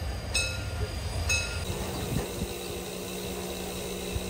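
Class 52 steam locomotive 52 8154-8 and its train: a low rumble with a short high tone repeating about once a second, then an abrupt change less than halfway through to a steadier hum and hiss from the locomotive.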